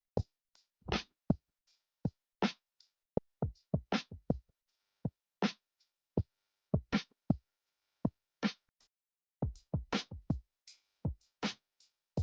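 Sparse drum-machine beat: separate kick and snare-like hits with short silent gaps between them, with no melody.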